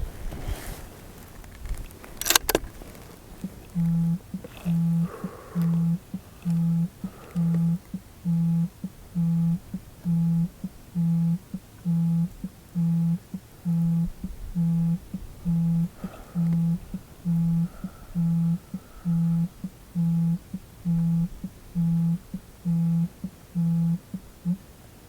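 Mobile phone vibrating with an incoming call: a low buzz pulsing on and off about once a second, around twenty times, then stopping. A single sharp bang sounds shortly before the buzzing begins.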